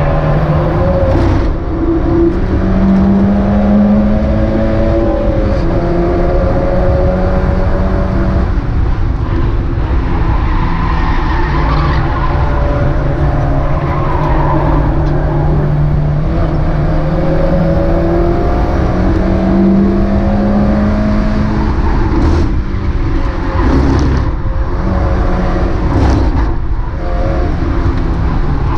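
Mazda MX-5 race car engine running hard, its note climbing slowly with revs and dropping back several times as it shifts or lifts. A few short sharp cracks come in the last third.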